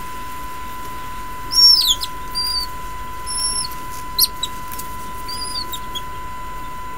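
Western marsh harrier nestlings calling: short, high, thin whistled squeals repeated every second or so, with a quick run of falling squeals about one and a half seconds in, the loudest part.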